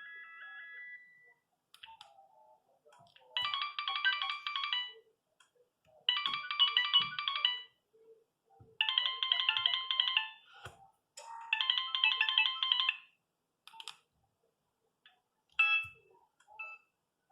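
Nokia 3510 mobile phone ringtone: four bursts of rapid trilling tones, each about a second and a half long with about a second between them, after the tail of the previous tune fades out at the start. A few short clicks follow near the end.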